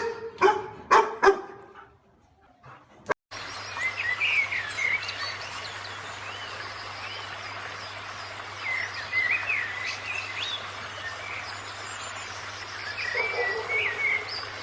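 A dog barks about four times in quick succession, then after a short gap the sound cuts to outdoor ambience where small birds chirp repeatedly over a steady low hum.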